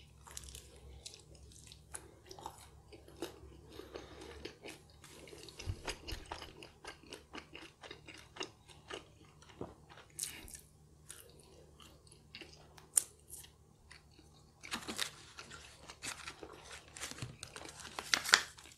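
Close-up chewing and crunching of a mouthful of stuffed-crust pizza crust with beef lasagna, many small irregular crunches and mouth sounds. Near the end there is a louder rustle as a fork works in a foil lasagna tray.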